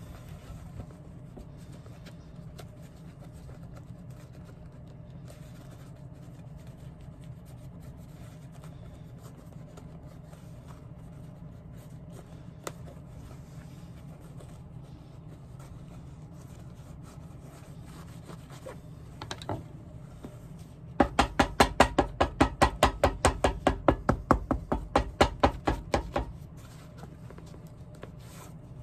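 Faint rubbing and cutting as a shoemaker's knife trims excess storm welt along the edge of a shoe, over a steady low hum. Near the end comes a quick run of sharp, ringing metallic taps, about six a second for some five seconds.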